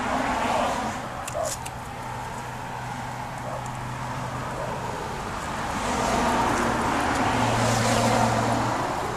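Motor vehicle traffic passing, with a steady engine hum that swells about six seconds in and fades near the end. A few light clicks about a second and a half in.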